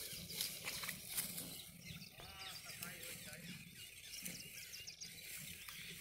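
Faint outdoor ambience of small birds chirping, with a few sharp clicks in the first second.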